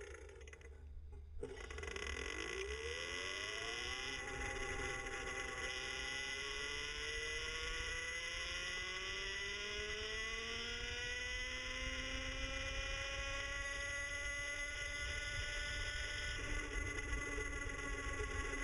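Electric cafe-racer motorcycle's motor whining as it pulls away, the whine rising in pitch from about a second and a half in and levelling off at cruising speed, over a steady low rumble of road and wind noise.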